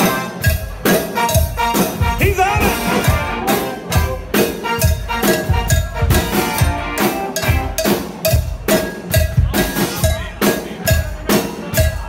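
Live band music with a steady drum beat and a cowbell struck in time, really loud in the mix.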